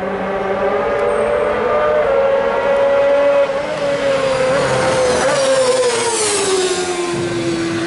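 Racing sidecar outfit's engine at high revs, growing louder as it approaches, then sweeping past with a clear drop in pitch about six seconds in and trailing away.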